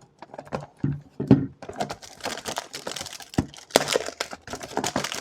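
Crinkling and tearing of a perfume box's wrapping as it is unpacked by hand: a few scattered clicks and handling knocks, then a dense run of crackles from about two seconds in.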